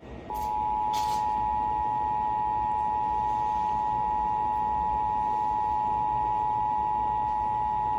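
Emergency Alert System attention signal: two steady tones a little apart in pitch sounding together as one continuous alarm, starting a fraction of a second in. It announces that an emergency alert message follows, here a Required Monthly Test.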